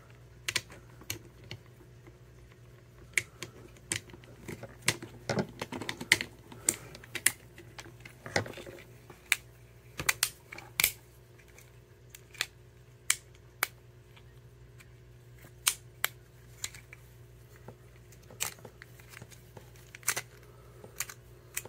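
Small plastic Transformers Bumblebee figure being worked by hand from car to robot. Its joints and tabs give dozens of sharp, irregular clicks and snaps, several close together at times, with light handling rubs between them.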